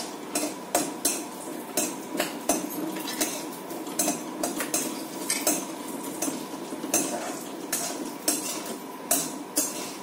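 A metal spoon scraping and clinking against a kadhai, stirring dry fruits roasting in ghee. Irregular sharp scrapes about twice a second.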